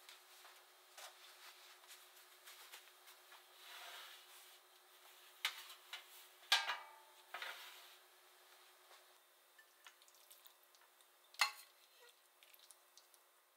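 A glass baking dish being lifted out of an oven with oven mitts: scattered clinks and knocks of glass against the metal oven tray, the loudest about six and a half seconds in, over a faint steady hum.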